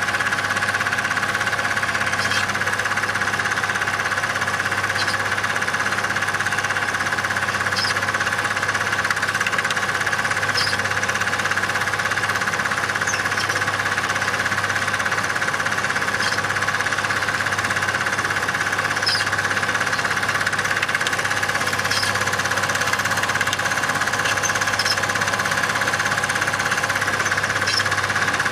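Super 8 cine projector running, a steady mechanical whirr and clatter with a low hum and a faint tick about every three seconds.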